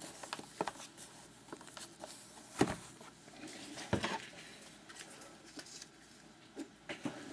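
Faint handling of a sealed hockey card box being opened: scattered small clicks and light rustling of wrapper and cardboard, with two sharper clicks about two and a half and four seconds in.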